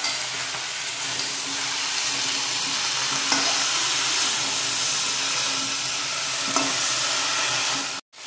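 Chopped vegetables sizzling as they fry in hot oil in a metal kadai, stirred with a metal spatula, with two sharp knocks of the spatula against the pan. The sound cuts off suddenly near the end.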